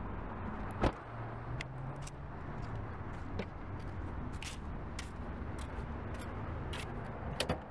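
A car door shuts with a sharp knock about a second in. Footsteps and light clicks on pavement follow over a steady low hum.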